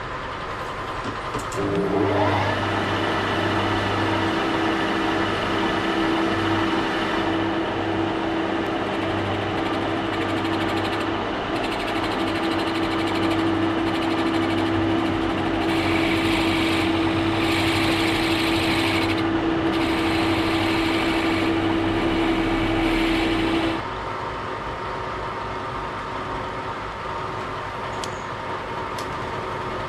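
Metal lathe starting up about two seconds in and running with a steady hum while turning a wooden blank. The tool cutting the wood adds a hiss that comes and goes midway. The level drops suddenly near three-quarters of the way through.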